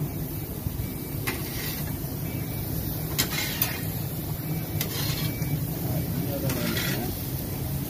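A steady low motor hum, with a few short sharp metal scrapes and clicks of a long-handled spatula working chicken on a flat-top charcoal griddle.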